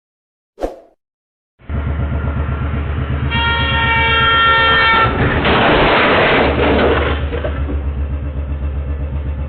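A sharp click, then a loud vehicle cuts in with a fast, steady throb. A multi-tone horn blows for about two seconds, followed by a louder rushing noise that eases off again.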